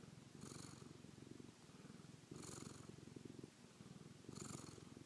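Domestic cat purring soft and close to the microphone, the purr swelling and easing with each breath in and out, about every two seconds.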